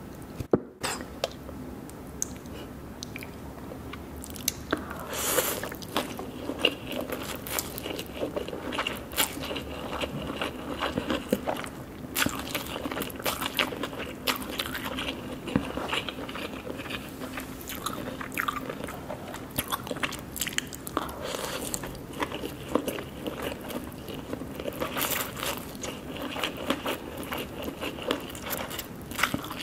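Irregular crunching and crackling, many short clicks close together, growing denser from about five seconds in.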